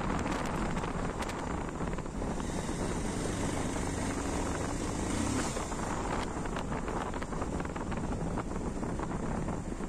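Motorcycle riding along at road speed: the engine running under steady wind noise on the microphone.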